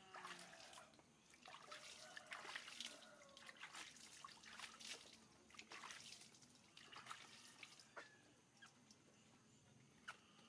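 Faint bath water trickling and dripping, with many small, uneven splashes that thin out near the end.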